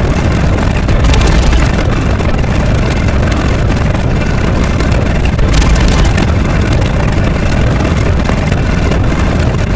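A loud, steady rumbling roar, heaviest in the bass, with no clear pitch.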